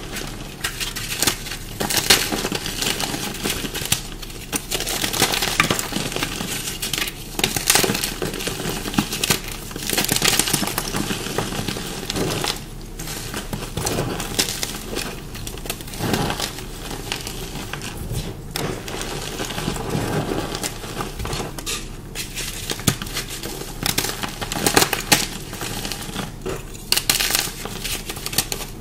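Close-up crunching of dyed chalk blocks being bitten and chewed: a dense, irregular run of sharp crunches and crackles. The dyeing and pasting have made this chalk crunchier and dustier than usual.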